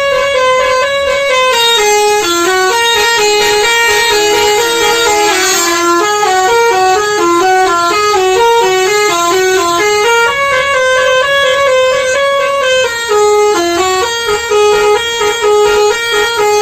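Telolet bus horn, a multi-tone musical air horn, playing a tune of short held notes that step up and down without pause. There are a few brief breaks between notes near the end.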